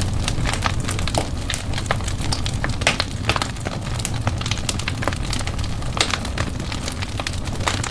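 Wood fire burning in a fireplace: a steady low rumble of the flames with frequent irregular crackles and pops from the burning logs.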